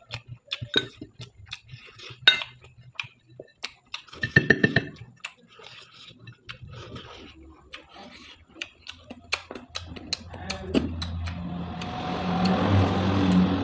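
Metal cutlery clinking and scraping against a plate of fried rice in quick, irregular taps, with a few louder clinks. In the last few seconds a steady low hum with a rising hiss builds up underneath.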